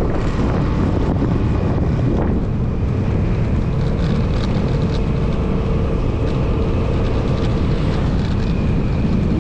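Wind buffeting the microphone on a moving motorcycle, with the engine running steadily underneath.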